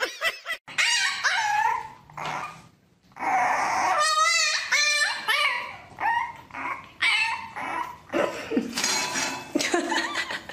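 Dogs whining and yipping in a string of short calls that bend in pitch, with a quavering, howl-like whine about halfway through.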